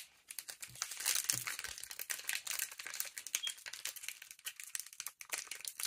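Foil trading-card booster-pack wrapper crinkling and crackling as it is pulled open by hand, a dense run of quick crackles.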